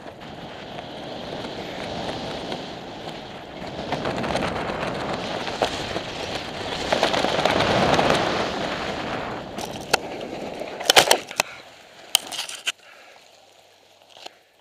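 Air rushing over the microphone as a smokejumper descends under his parachute, growing louder toward about eight seconds in. Then a few sharp knocks and scrapes come about ten to twelve seconds in as he lands on the gravel road.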